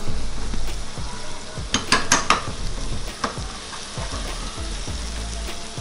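Sauce sizzling in a hot pan while a spatula stirs it, with a few sharp knocks and scrapes of the spatula against the pan about two seconds in and once more a second later.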